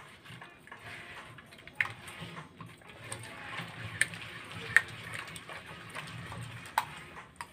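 Hand mixing thin spiced cornflour-and-maida batter in a steel bowl: continuous wet squelching and sloshing, with a few sharp clicks against the steel bowl.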